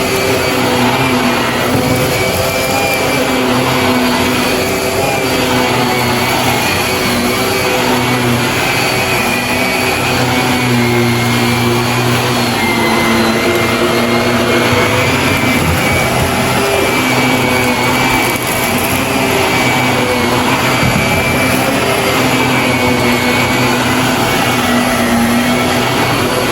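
Shark vacuum cleaner running steadily, a motor hum with a high whine that wavers slightly in pitch as it is worked.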